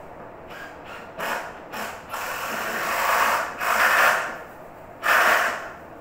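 A series of rough scraping strokes, short at first, then longer and louder, with a last strong one about five seconds in.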